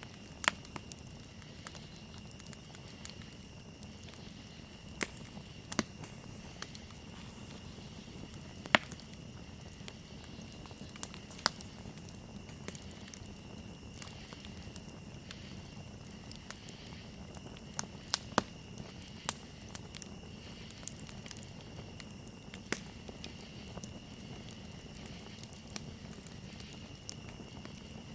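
Campfire burning: a low steady rush of flame under irregular sharp crackles and pops from the burning wood, a few of them much louder than the rest.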